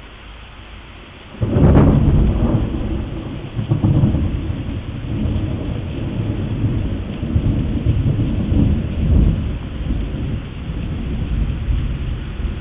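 Heavy rain hissing steadily, then about a second and a half in a close thunderclap cracks and rolls into a long rumble of thunder that swells and fades several times over the rain.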